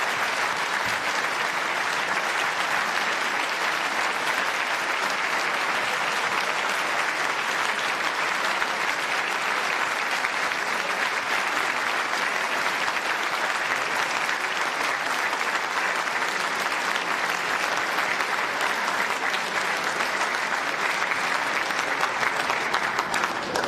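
A large audience applauding steadily with dense, continuous clapping that eases only at the very end.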